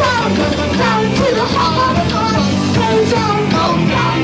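A rock band playing loud and steady, live: bass and drums under a gliding, wavering high line.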